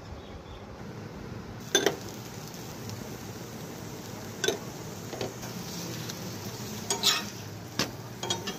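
Paratha cooking on a hot tawa with oil or ghee, a steady sizzle. A metal utensil knocks and scrapes against the pan several times, with the loudest, a double knock, about two seconds in.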